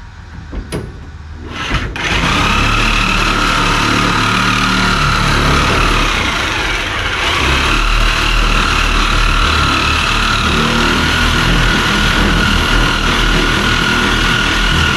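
Electric power shears cutting through sheet-steel floor pan: a few clicks, then from about two seconds in a steady, high motor whine as the blades work through the metal.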